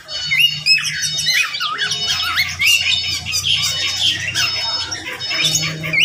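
A mixed flock of aviary birds (parakeets, lovebirds, budgerigars and other small cage birds) chattering and squawking continuously, many short rising and falling calls overlapping.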